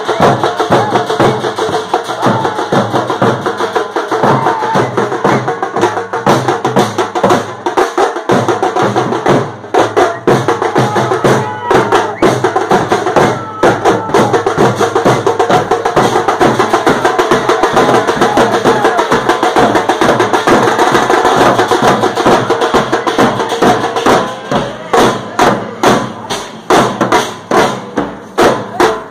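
Teenmaar street drumming: a group of hand-held frame drums and a stick-beaten bass drum play a fast, dense rhythm, with crowd voices mixed in. Near the end the strokes come through more separately.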